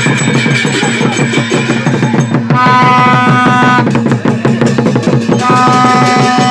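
A Newar dhime drum and large cymbals beaten in a fast, steady rhythm. A plastic horn is blown in a long note about two and a half seconds in and again about five seconds in.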